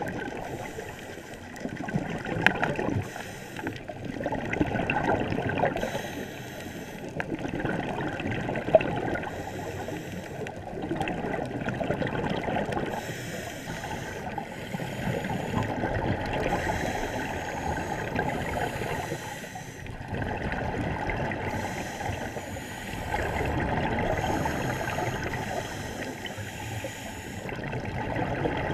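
Scuba regulator breathing heard underwater: a hiss on each inhale and a rush of exhaled bubbles, in slow cycles every few seconds. Two sharp clicks stand out, one a few seconds in and one near the middle.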